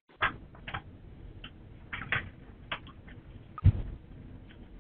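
Irregular soft clicks and ticks, a dozen or so, with one louder knock with a low thump about three and a half seconds in.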